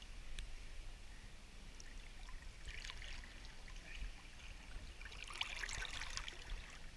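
Swimming-pool water lapping and splashing softly, with two short bursts of splashing: one about three seconds in, and a longer one between five and six and a half seconds.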